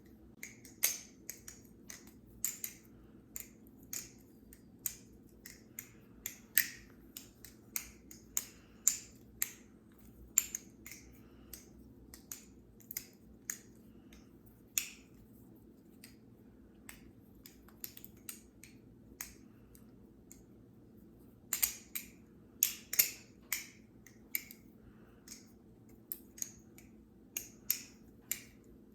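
Theone bamboo-style balisong (butterfly knife) being flipped: its handles clack against the pins and each other in sharp, irregular clicks, about one or two a second. The clicks stop for several seconds about halfway through, then come back as a louder cluster.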